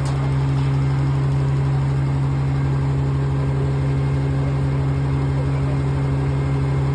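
Engine of the heavy equipment setting a concrete septic tank, running steadily at a constant speed.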